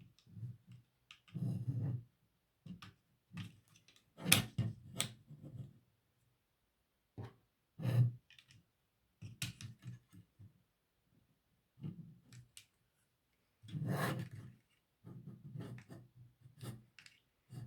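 LEGO bricks being handled and pressed together: irregular plastic clicks and short rustles of pieces, a few sharper snaps about 4, 8 and 14 seconds in.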